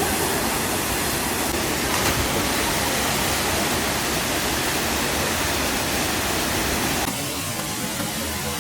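Steady rushing of a waterfall. It drops off suddenly to a quieter sound about seven seconds in.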